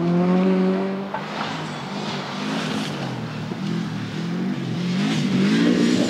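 Rally car engine at full throttle, its note dropping away after about a second, then wavering up and down through the revs and rising again near the end.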